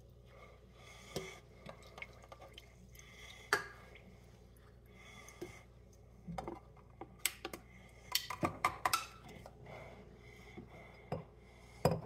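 Light clinks and knocks of a stainless steel cocktail shaker and an aluminium drink can being handled, with a faint pour of sparkling water into the shaker. The knocks come scattered, thickest about eight seconds in.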